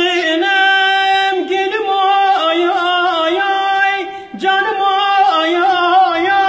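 A man singing a Turkish folk melody in a high, drawn-out voice, holding long steady notes with short ornamental turns between them, with a brief break about four seconds in.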